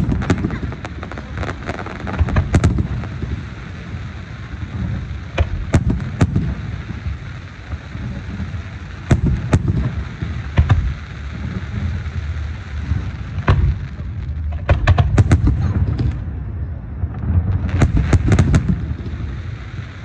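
Fireworks going off: repeated sharp bangs and crackling pops over low rumbling booms, with two denser flurries of pops near the end.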